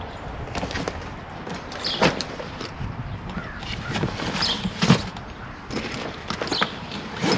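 Soft motorcycle sissy-bar bag being handled and stuffed: fabric rustling and scraping, with a few short knocks, the sharpest about five seconds in.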